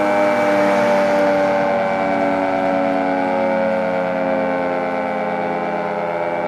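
Federal Signal 2T22A two-tone outdoor warning siren sounding its chord, its pitch sagging slowly and its level easing slightly over the few seconds.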